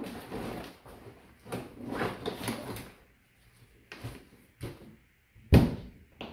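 Rustling as a soft bag is pushed down into a boat's deck storage hatch, then a few light knocks and a loud thump about five and a half seconds in as the hatch lid is shut.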